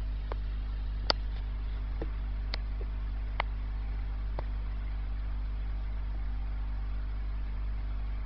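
Steady low hum of an aquarium pump, with about half a dozen sharp clicks in the first half.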